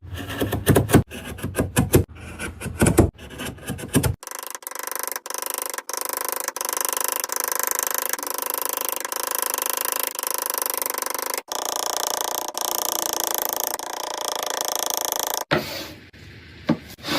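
Woodworking hand-tool sounds: a run of quick rasping strokes for about four seconds, then a steadier rubbing sound, broken by abrupt cuts.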